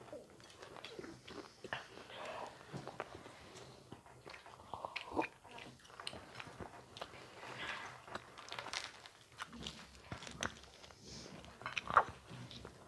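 Food being bitten and chewed close to the microphone: irregular crunching and clicking, with a sharp snap about five seconds in and a louder one near the end.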